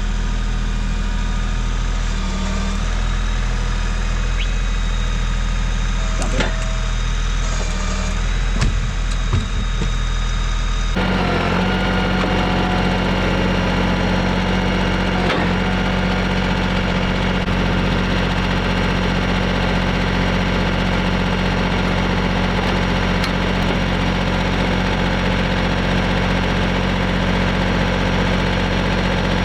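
An engine idling steadily; about eleven seconds in its note changes abruptly to a stronger, higher hum.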